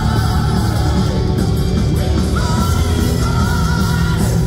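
Live power metal band playing loud, with distorted electric guitars, bass, drums and singing. A long high note, held with a slight waver, comes in about halfway through.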